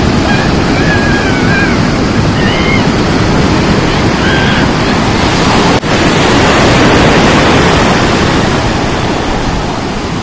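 Rough sea surf: a loud, steady rush of breaking waves, briefly cutting out a little past halfway.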